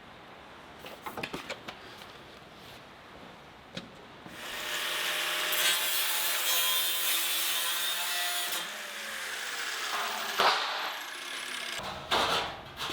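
A power saw cuts for about four seconds, then its motor winds down with a falling whine, with a few small knocks and handling sounds before it.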